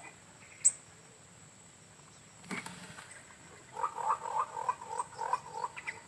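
A single sharp pop about half a second in, fitting the air rifle's shot. In the second half an animal calls in a quick repeated run of short notes, about five a second.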